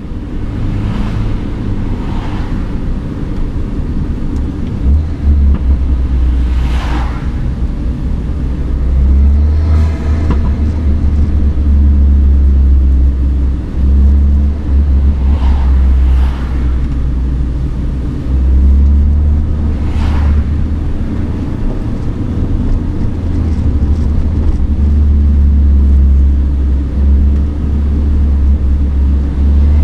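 Turbocharged N14 four-cylinder of a Mini Cooper R56 John Cooper Works, breathing through a DOS cold air intake, running under load while driving. The low engine drone pulls steadily, broken several times by short dips with a brief rush of intake noise, as at gear changes.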